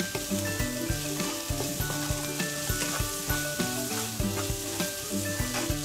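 Diced vegetables sizzling in butter in a nonstick pan, stirred with a wooden spoon that scrapes and knocks against the pan many times. Soft background music with steady notes plays underneath.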